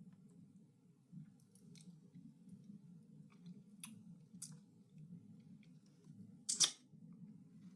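Quiet clicks and light scrapes of a utensil against a food dish while food is served out onto a plate, with one louder, longer scrape about six and a half seconds in, over a steady low hum.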